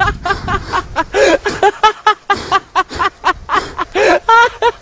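Men talking excitedly in Russian, voices close to the microphone, with a brief low rumble at the start.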